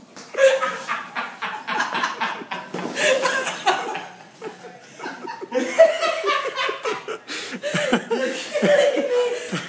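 Laughter that goes on without a break, in fits that swell and ease off.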